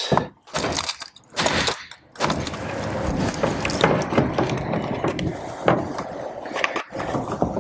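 A few sharp knocks of a hammer tapping a corroded, stuck outboard control cable end to drive it out of the forward control unit. About two seconds in they give way to a steady scraping and rattling with small clicks as the cable is worked loose by hand.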